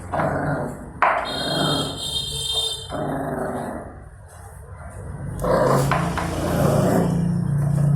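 Puppies growling and barking at each other in a squabble over food. A sharp bark comes about a second in, with a high thin whine over the next couple of seconds, and a steady low growl holds through the second half.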